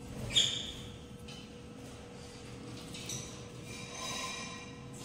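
Peach-faced lovebird calling: one sharp, high chirp about half a second in, a fainter chirp soon after, then a run of high chattering calls in the second half.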